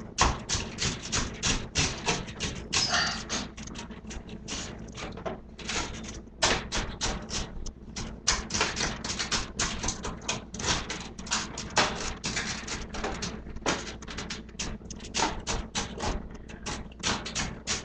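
A rapid, irregular run of clicks and knocks, several a second, with a steady low hum beneath.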